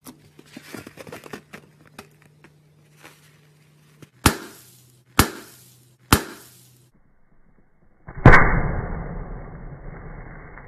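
Slime being worked in a bowl: a run of small clicks, then three sharp snaps about a second apart. Near the end comes a louder burst that dies away over a couple of seconds.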